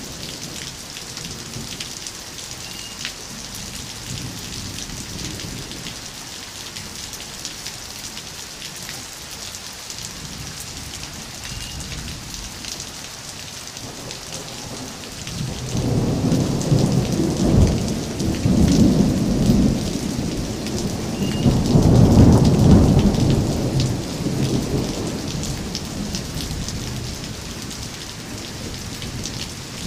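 Rain falling steadily, with a roll of thunder rumbling in about halfway through, swelling twice, then fading away.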